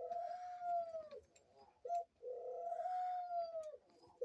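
Dove cooing: a short note followed by a long, drawn-out coo, given twice.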